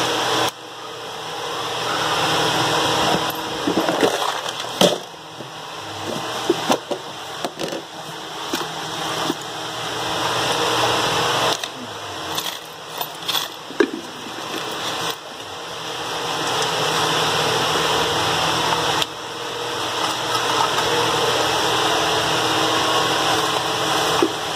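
Scattered metal clicks and knocks as a pressure cooker lid and its vent tube nut are handled and turned over, over a steady rushing noise that swells and falls back every few seconds.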